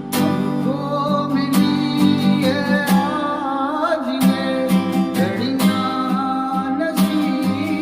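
Acoustic guitar strummed in a steady, even rhythm of down and up strokes, with a voice singing a gliding melody along with the chords.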